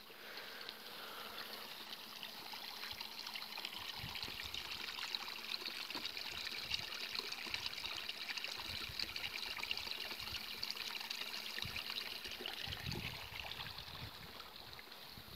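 Spring water pouring from a pipe into a stone-and-concrete trough: a steady trickling splash that grows louder in the middle and eases near the end, with a few low thumps.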